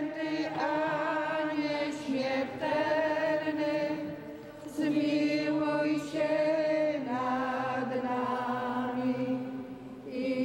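Congregation of women singing a slow hymn together in unison, in held phrases of a couple of seconds each with short pauses for breath between them.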